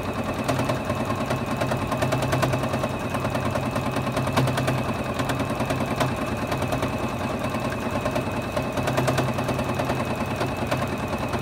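Juki Exceed HZL-F600 domestic sewing machine stitching steadily at an even speed during free-motion quilting, its needle running in a fast, regular rhythm.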